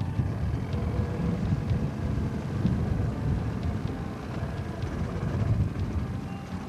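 Low rumble of a boat's outboard motor on open water, with wind buffeting the microphone.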